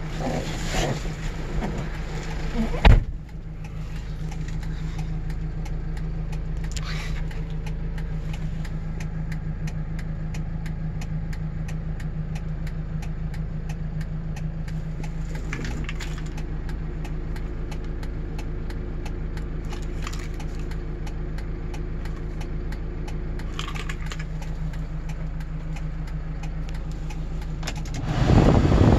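Kia Bongo 3 truck's diesel engine idling steadily, heard from inside the cab, with a single thump about three seconds in. Near the end the cabin blower fan is switched up and a louder rush of air comes in over the idle.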